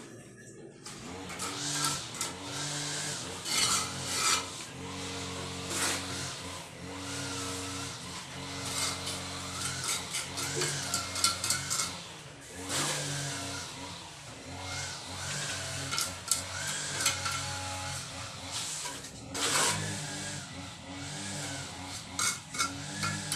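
A hand tool rasping and knocking against a concrete block wall, with several loud scrapes a few seconds apart. Under it runs a continuous hum of held low tones that change pitch in steps.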